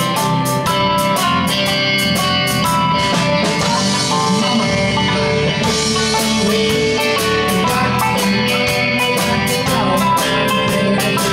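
Live band music: electric guitar strummed over a Pacific drum kit, with a steady cymbal beat ticking about four times a second that runs together into a wash for a couple of seconds midway.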